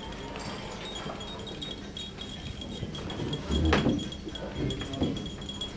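Hall ambience with a steady, faint high-pitched whine and scattered light clicks, broken by one dull thump about three and a half seconds in.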